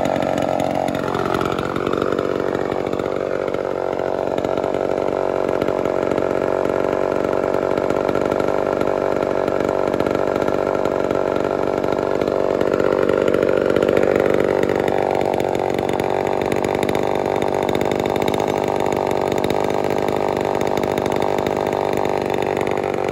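1973 Homelite Super XL Auto two-stroke chainsaw running steadily, most likely at idle.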